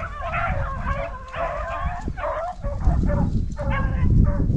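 A pack of rabbit hounds baying on the chase, several dogs' voices overlapping in repeated calls, over a low rumble that swells near the end.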